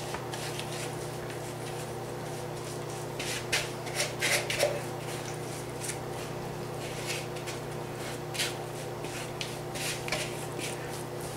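A spatula scraping and tapping a thick, crumbly oat topping out of an upturned plastic mixing bowl, the clumps dropping onto the fruit below in irregular strokes. A steady low hum runs underneath.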